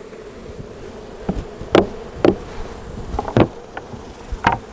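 Honey bees buzzing steadily around an opened hive, with about six sharp knocks and clicks of wooden hive frames and boxes being handled.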